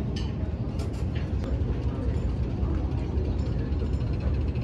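Steady low rumble of dining-room background noise, with a few light clicks and clinks in the first second and a half.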